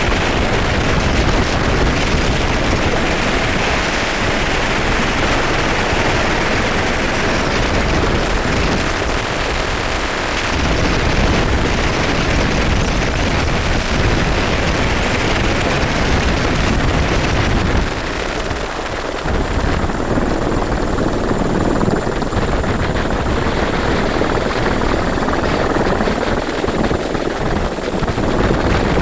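Helicopter running steadily: a loud, dense rotor and engine noise with a thin, steady high whine over it.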